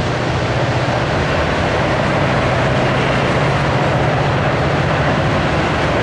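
Freight cars, tank cars and hoppers, rolling past: a steady, loud rumble and rush of steel wheels on the rails, with a low hum underneath.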